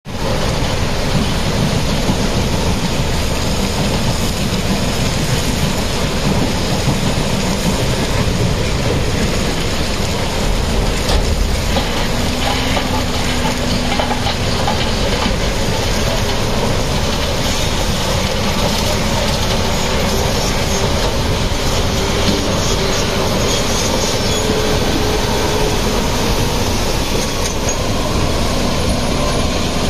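Heavy quarry machinery at work: diesel engines running with a steady, loud clattering rumble, and a brief faint whine near the middle and again later on.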